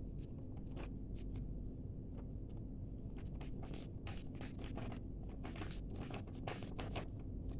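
A sheet of A4 paper being folded and handled, giving short, irregular crinkles and rustles over a low steady hum.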